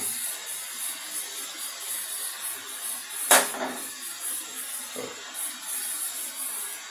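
Prawns frying in oil in an aluminium kadai, a steady faint hiss as chopped tomato pieces are dropped in, with one sharp knock a little after three seconds and a softer one about a second later.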